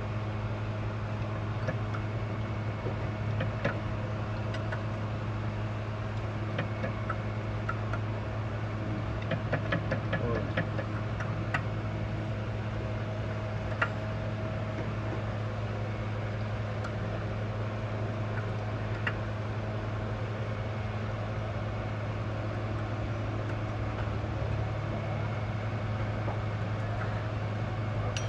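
A steady low mechanical hum, like an engine running at idle, with scattered light clicks and metal taps from hand tools, a quick run of them about ten seconds in.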